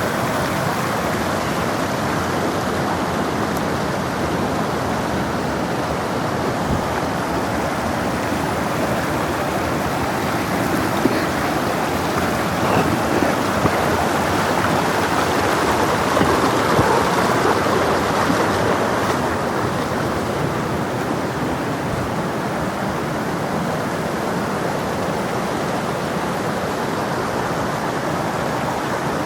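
Spring-fed brook running fast over stones: a steady rush of water, a little louder about halfway through.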